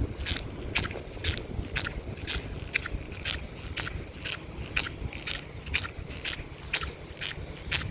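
Footsteps crunching on beach sand at a steady walking pace, about two steps a second, over a steady low rumble.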